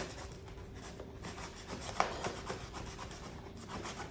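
Cardboard box and packing tape being scraped and rubbed while the box is worked open, with a sharp click about two seconds in.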